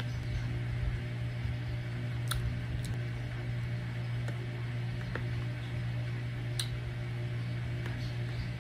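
Steady low hum, with a handful of light clicks of a metal spoon against a plastic container of oats.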